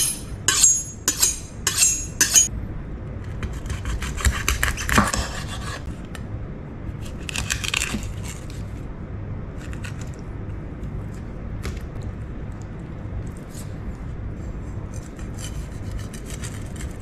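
A kitchen knife is honed with about six quick, ringing metal strokes. It then scrapes and cuts through a pike on a wooden chopping board, with two longer rasping cuts and a few faint clicks as the fish is filleted.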